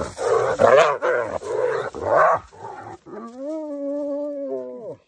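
Spotted hyenas fighting over a carcass: a rapid run of rough snarls and growls for about two and a half seconds, then one long whine held steady for about two seconds that drops in pitch as it ends.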